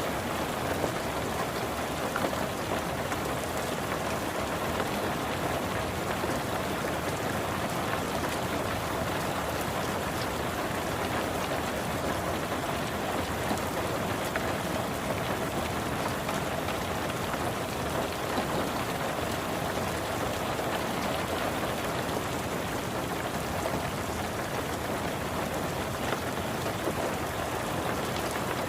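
Steady rain falling on a car, heard from inside the car: an even hiss of rain with many small drop ticks.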